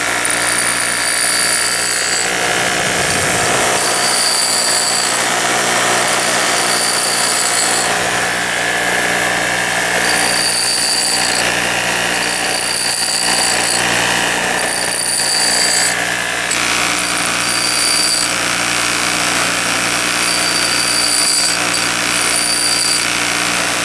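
Bench grinder running with a steady hum while a twist drill bit is touched to the wheel again and again. Each short pass gives a high grinding whine, about every two to three seconds, as the bit's cutting edge is ground to give it clearance.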